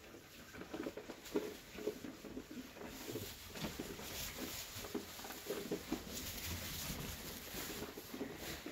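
Dorper sheep feeding at a trough and moving about on straw bedding: irregular light knocks and patter of hooves and muzzles, with a steadier rustle of straw from about three seconds in as the animals jostle.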